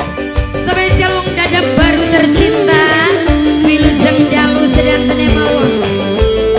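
Live tarling-dangdut band music: electric guitars and a steady drum beat under a long, gliding melody line.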